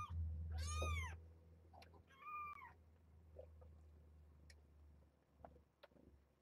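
Kittens about three weeks old mewing: three short high-pitched mews in the first three seconds, each rising then falling in pitch. Faint scratchy ticks follow over a steady low hum.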